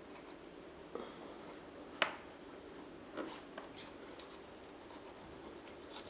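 Kitchen knife scraping and slicing the skin off a whole aloe vera leaf: a soft, scratchy rasping with a few sharp clicks, the loudest about two seconds in.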